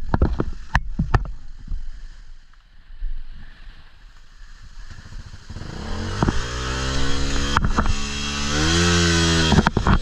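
Motorcycle engine running and revving, rising in pitch and getting louder from about six seconds in, loudest near the end. A few sharp knocks and clatter come in the first second or so.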